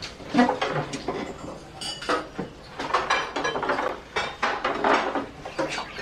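Tableware clinking during a meal: chopsticks tapping bowls and plates, and dishes set down on the table in a scatter of short clinks.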